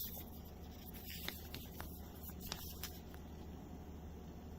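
Faint light clicks and small handling noises, a few of them between about one and three seconds in, over a low steady hum.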